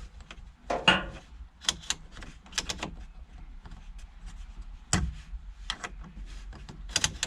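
Small clicks and knocks of aluminium heater-control knobs and their covers being handled and fitted onto a Mazda MX-5's heater panel, with two louder knocks about one second and five seconds in.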